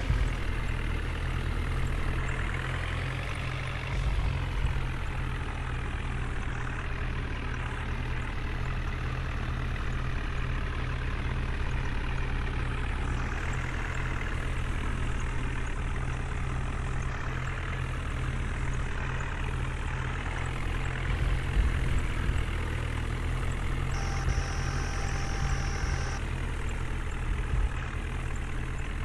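Diesel engine of a JCB 3DX backhoe loader running under load while it digs and loads mud, with tractor engines idling alongside. The engine note rises and falls a few seconds in, and near the end a steady high tone sounds for about two seconds.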